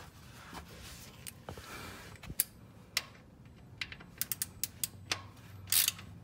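Socket ratchet clicking in short strokes as the oil drain plug is tightened back in after draining. The sharp clicks are scattered, with a quick run of them about four seconds in and a louder short rasp near the end.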